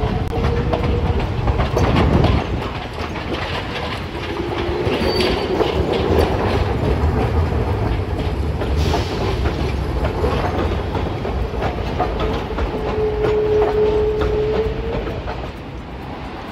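Hiroshima Electric Railway streetcars running on street track: steady low wheel rumble with clicking over rail joints and crossings, and a faint held tone from the tram that comes and goes. The sound drops off near the end.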